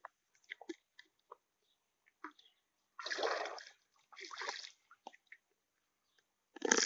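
Water splashing as it is poured from a jug: two short splashes about three and four seconds in, then a longer, louder pour starting near the end.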